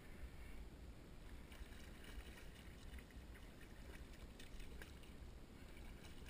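A hooked fish thrashing and splashing at the water's surface as it is reeled in, faint, in short splashes from about a second and a half in until near the end.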